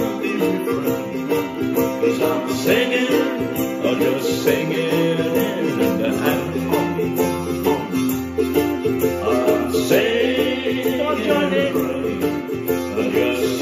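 Ukulele strummed with simple downstrokes and hammer-ons on the third string at the second fret, moving between C7 and F chords, over fuller accompanying music. A lower bass note enters about six seconds in.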